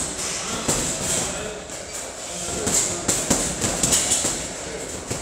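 Boxing gloves hitting heavy punch bags: irregular thuds from several people punching at once, over a steady background noise.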